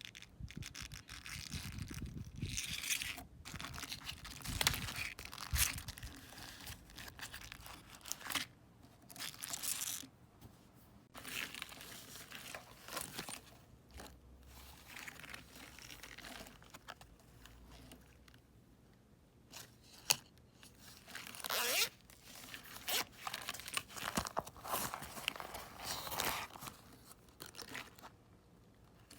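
Packaging being handled and opened: irregular crinkling, rustling and tearing with a few light knocks, and one sharp click about two-thirds of the way in.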